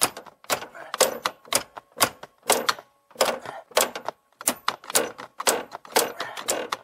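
A quick series of short, sharp metal-on-metal hammer blows, about two to three a second, with a faint ring between them: a maul striking a replacement steering shaft on a 1996 Ford Mustang to drive it up flush into place, with little room to swing.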